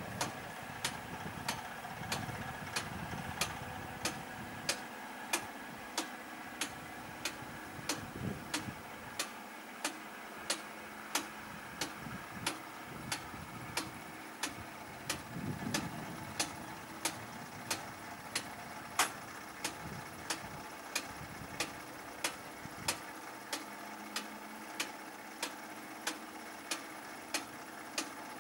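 Level crossing warning bell striking steadily, about three strikes every two seconds, while the barriers lift after a train has passed. A low rumble fades out over the first several seconds.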